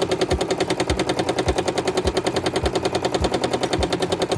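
Domestic sewing machine stitching steadily at speed during free-motion quilting with a hopping foot: a rapid, even stitch-by-stitch rhythm, with a low knock about twice a second beneath it.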